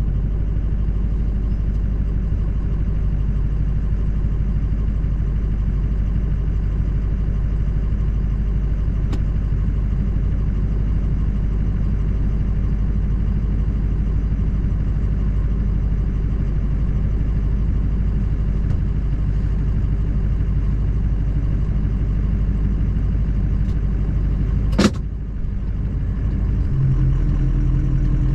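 Steady low rumble of a diesel truck's engine and road noise while driving. A single sharp thump about 25 seconds in, and near the end a steadier engine hum comes in.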